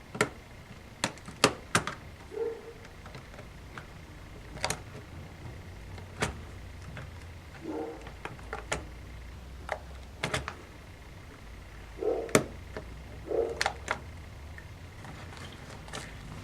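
Sharp plastic clicks and taps at irregular intervals, with a few short dull knocks, as a laptop keyboard is pried loose and lifted out of its case with a plastic pry tool.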